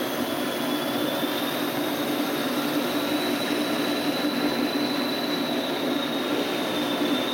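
Model railway trains running on the layout: a steady whirr of small electric motors and wheels on the track, with a thin high whine that rises slightly and eases back.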